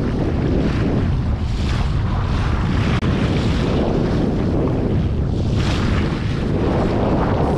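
Wind buffeting the microphone over water rushing and splashing along the hull of a Tiwal 3 inflatable sailing dinghy under way. The splashing swells and fades every second or two.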